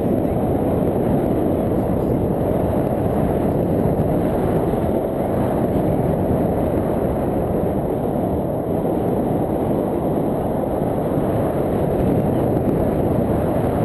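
Wind from the paraglider's airspeed buffeting a handheld action camera's microphone: a loud, steady, low rumbling rush.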